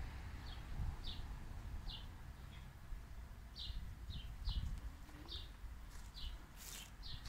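A small bird chirping, short high chirps repeated about once or twice a second at an uneven pace, over a low rumble of wind or handling noise on the microphone.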